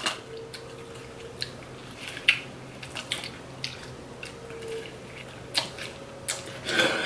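Close eating sounds: chewing and biting into corn on the cob coated in crushed Flamin' Hot Cheetos, with scattered short wet clicks and smacks.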